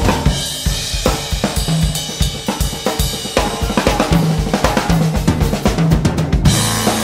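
Background music from a military band recording: a drum kit keeps a steady beat with snare, bass drum and cymbals.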